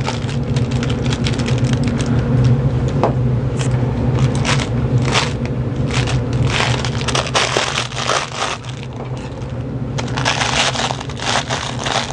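Crinkle fabric inside a burlap stuffed dog toy crackling and rustling in quick, irregular crackles as stuffing is pushed into it by hand and with a wooden stick, over a low steady hum.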